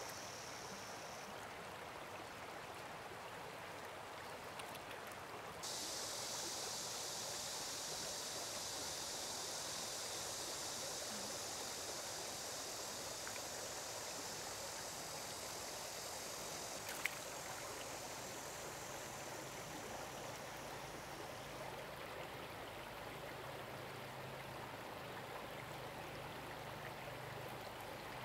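Stream water running steadily. A higher steady hiss joins about six seconds in and drops away a little past twenty seconds, and a single sharp click sounds a little past the middle.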